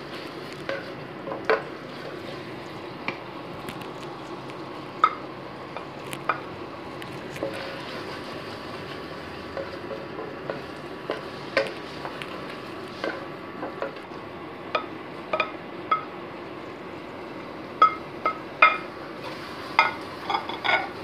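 Wooden spatula stirring grated paneer through thick tomato-onion masala in a pressure cooker pot, scraping and knocking against the pot's sides and bottom in irregular strokes about once a second, the knocks closer together and louder near the end.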